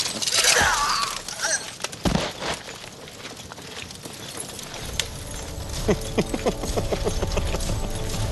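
Dramatized battle-film soundtrack: a falling swish and a single knock early on, then a low rumble swells with sustained music tones building toward the end.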